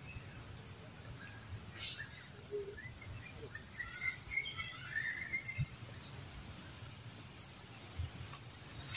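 Birds chirping: many short, high chirps throughout, with a warbling call about four seconds in, over a low steady rumble of background noise.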